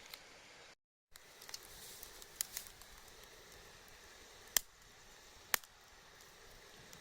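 Faint steady background hiss, cut off by a brief dead-silent gap about a second in. A few light taps follow, then two sharp clicks about a second apart past the middle.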